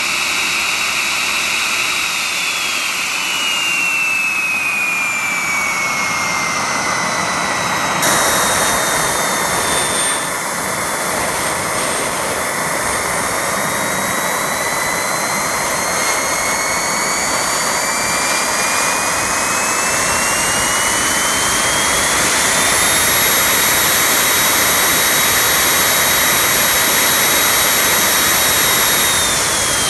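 Small 50 mm model jet turbine running: a high whine over a steady rushing hiss. The whine drops in pitch over the first several seconds, climbs back up about halfway through as the turbine is throttled up toward 230,000 rpm, and falls again near the end.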